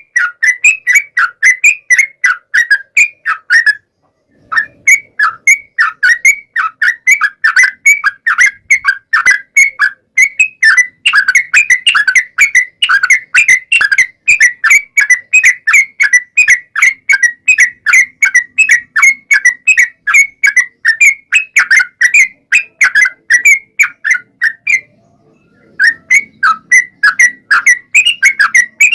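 Yellow-vented bulbul (trucukan) singing a long unbroken run of rapid, repeated whistled chattering notes, about five a second, pausing briefly about four seconds in and again near the end.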